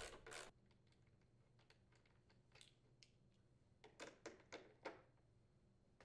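Near silence with a few faint clicks, then a quick cluster of four or five about four seconds in: a socket wrench working the nut and bolt on a snowblower's chute deflector bracket.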